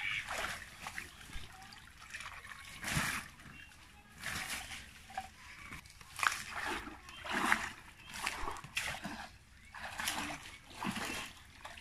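Shallow pond water splashing and sloshing in repeated irregular surges as a bamboo-framed push net is shoved through water and weed and lifted, with water trickling back out through the mesh.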